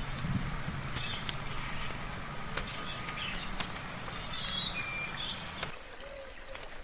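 Birds chirping and whistling in short, scattered calls over a steady haze of rain, with sharp clicks of drops here and there. A low hum runs underneath and stops near the end.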